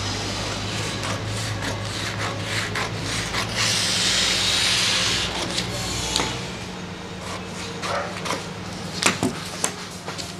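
Scissors cutting through heavy brown pattern paper: a run of short snips and paper crackle, with a longer, louder stretch of paper noise around the middle and the paper rustling as the cut strip is lifted near the end.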